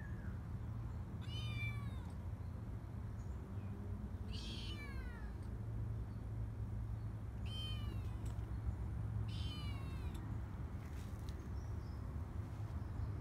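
Calico kitten meowing four times, each a short high-pitched call that falls in pitch, a few seconds apart, over a steady low background rumble.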